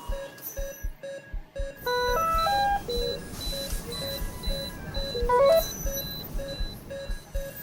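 Intensive-care medical equipment beeping: a steady run of short low beeps, joined about two seconds in by a row of short high beeps. A short rising multi-note alarm tone sounds about two seconds in and again about five and a half seconds in.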